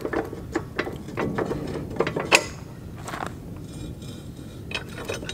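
Irregular metal clinks and knocks of a poorly fitting steel bolt being worked into the mounting bracket of a mechanical backhoe thumb. The loudest knock comes a little over two seconds in.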